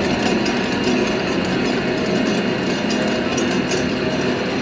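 B-15 15-litre heavy-duty dough mixer running with its paddle attachment turning in the empty stainless steel bowl: a steady motor and gear running noise.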